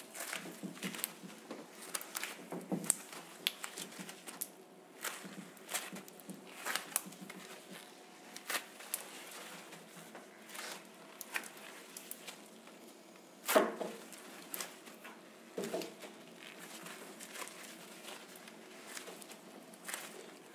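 Gloved hands pressing and folding a slab of hot candy sugar on a granite cooling table, making irregular soft sticky clicks, smacks and small knocks, with one louder knock about two-thirds of the way through. The sugar mass is being worked so it cools evenly. A faint steady hum sits underneath.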